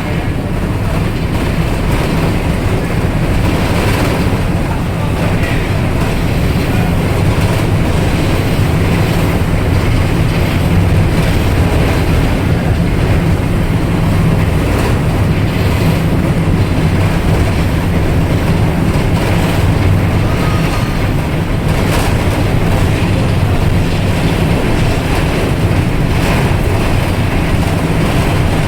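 Ferry engines running under way: a loud, steady drone with a strong low hum that does not change.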